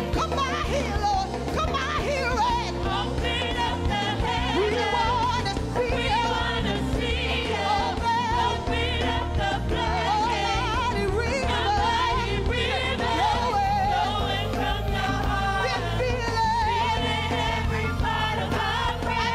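Women's gospel vocal group singing into microphones, several voices together with wavering, ornamented lines over a steady low accompaniment.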